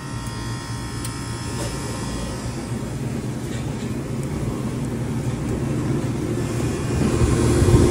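Manitowoc SD0852A ice machine running: a steady mechanical hum with a rush of noise from its compressor and fan. It grows a little louder, with a steady tone coming in, about seven seconds in.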